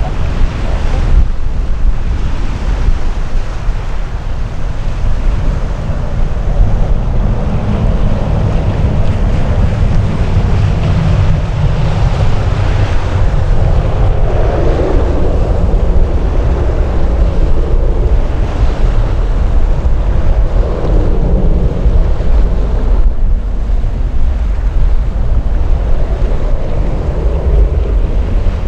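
Wind buffeting the microphone: a loud, unbroken low rumble that swells and eases, with no clear tone in it.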